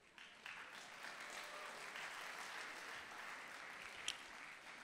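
Audience in a hall applauding, starting just after a moment of quiet, holding steady and tapering off near the end, with one brief sharp high sound about four seconds in.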